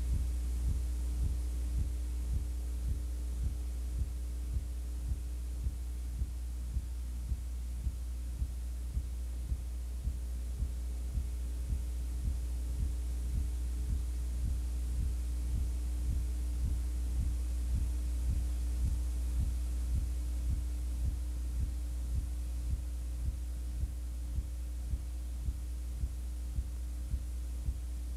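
Steady low electrical hum on an old videotape's audio track, with an even throbbing pulse about two to three times a second; no game sound or voices come through.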